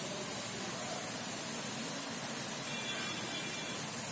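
Steady hiss of background noise with no distinct event, and a few faint high tones for about a second near the end.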